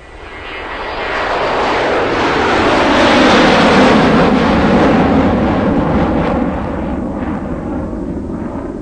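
A heavy diesel engine running hard. It swells to its loudest about three to four seconds in, then eases off gradually.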